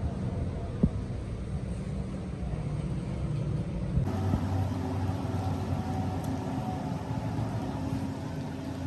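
A steady low mechanical hum, with a light metallic click about a second in.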